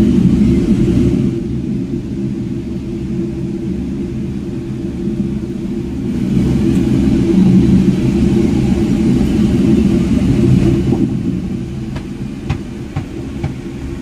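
Low, buffeting rumble of wind on the phone's microphone in a moving ropeway cabin, swelling and easing, with a few sharp clicks near the end.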